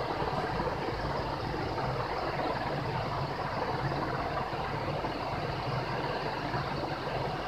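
Steady background noise: an even hiss with a low hum under it, unchanging throughout, with no distinct events.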